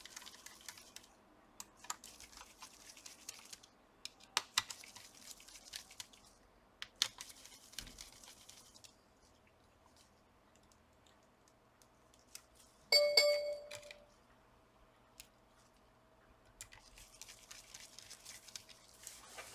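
Small clicks and light scraping of a laptop CPU cooler being seated and screwed down with a small screwdriver. About two thirds of the way through comes one sharp metallic clink, whose ringing fades over several seconds.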